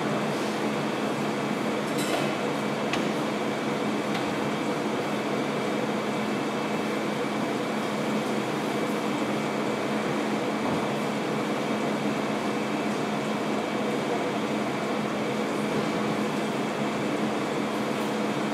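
Steady hum and hiss of room air conditioning, with a constant low tone under it, and a couple of faint clicks about two to three seconds in.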